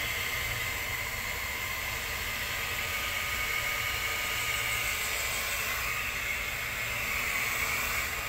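Hot-air plastic welding gun running steadily: its blower gives a constant hiss with a high whine while it heats the kayak's plastic hull to weld over a scratch.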